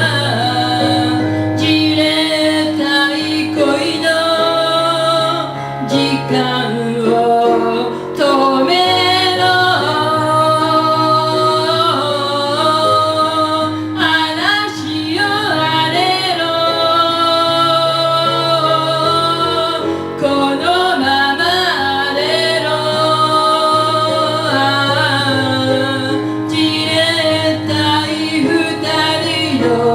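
A woman singing a Japanese pop song with instrumental accompaniment, performed live.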